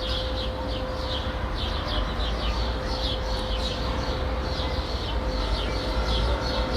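Residential city ambience: small birds chirping in quick repeated short notes over a low, steady rumble of distant traffic, with a thin steady hum running underneath.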